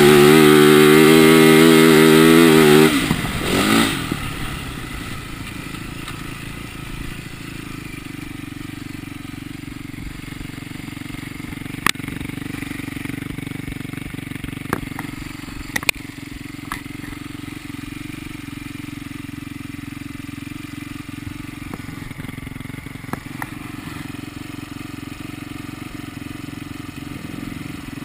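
2010 Yamaha YZ450F dirt bike's single-cylinder four-stroke engine running loud on the throttle, then backed off about three seconds in and settling to a steady, much quieter idle, with a few sharp clicks.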